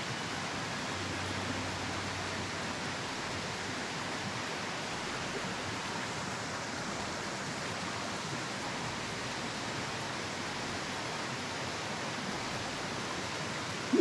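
Small waterfall on a mountain stream pouring into a rocky pool: a steady, even rush of falling water.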